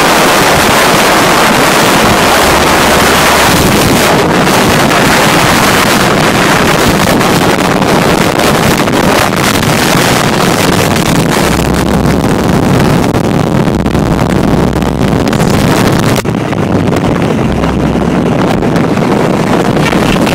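Heavy wind rush over the microphone of a motorcycle at road speed, with a rumble of engine and road noise underneath. About three-quarters of the way through the hiss turns duller.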